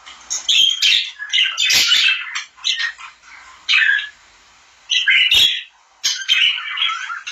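Pet birds chirping and squawking in rapid, irregular bursts, with two short pauses past the middle.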